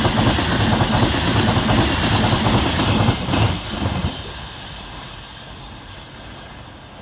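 Class 390 Pendolino electric train passing at speed: a loud rush of wheels on rail and air, dropping away sharply about four seconds in and fading to a quiet hiss.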